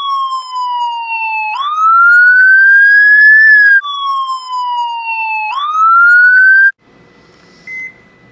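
Emergency-vehicle siren wailing through two cycles, each a slow fall in pitch followed by a quick jump and a long climb, then cutting off abruptly about seven seconds in. After it, a faint steady hum with a short beep near the end.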